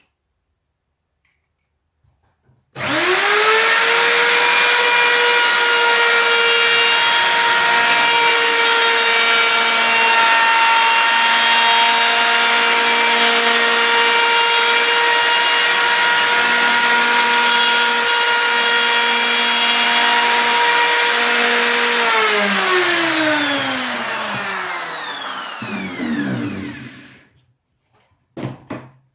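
Electric power tool's motor spinning up about three seconds in and running with a steady whine for about twenty seconds, then winding down with falling pitch over several seconds until it stops. A few knocks follow near the end.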